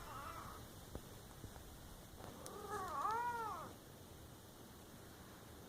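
A domestic cat meowing: the end of a short call right at the start, then about two seconds in one long, drawn-out meow that rises and falls in pitch.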